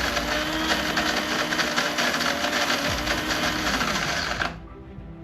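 Electric coffee grinder running, grinding beans for a 12-ounce cup. Its pitch dips briefly, then it cuts off suddenly about four and a half seconds in.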